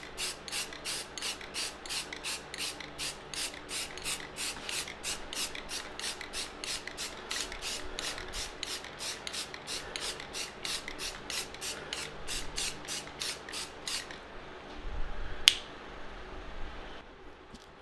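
Quick, even back-and-forth rubbing strokes across the sign's surface, about three a second, stopping about 14 seconds in. A single sharp click comes a little later.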